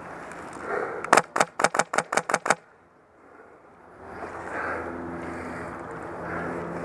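Airsoft rifle firing a quick string of about nine sharp shots over about a second and a half, followed by outdoor background noise.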